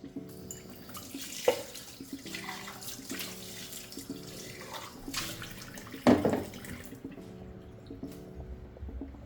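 Tap water running into a kitchen sink, as when rinsing vegetables in a colander, with two sharp knocks, one about a second and a half in and a louder one about six seconds in.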